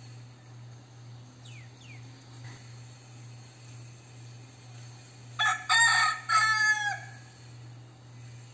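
Crossbred gamecock rooster crowing once about five seconds in: a short, loud crow in a few broken segments lasting about a second and a half.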